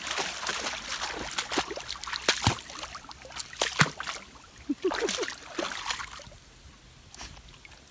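Creek water splashing and sloshing as dogs and a person wade through it: irregular splashes over a trickling stream.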